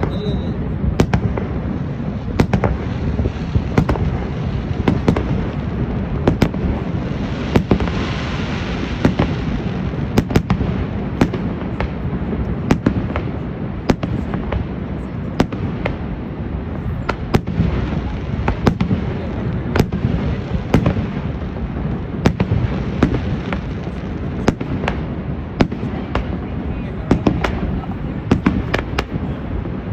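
Fireworks display: a rapid string of bangs and pops, several a second, over a continuous low rumble, with a stretch of brighter crackling hiss around the middle.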